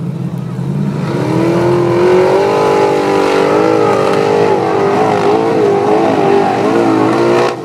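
Formula Offroad competition car's engine revving hard under full load up a steep sand slope: the pitch climbs about a second in, then wavers up and down as the wheels bounce and spin, and the revs drop away suddenly near the end.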